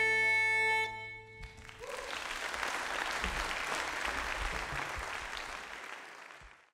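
The final held chord of uilleann pipes, fiddle and guitar ends the last jig about a second in. Audience applause follows and fades out near the end.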